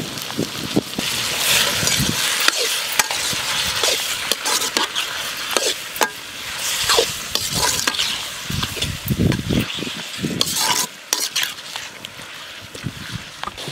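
Tomatoes and onions sizzling in hot oil in an iron kadai while a perforated steel skimmer stirs them, scraping and clinking against the pan. The sizzle eases a little near the end.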